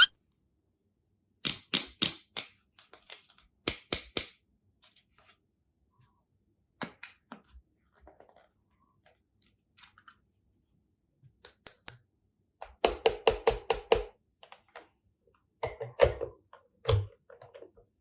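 Sharp clicks and taps of small toy pieces being handled, in short quick runs with pauses between, the fastest run about two-thirds of the way in.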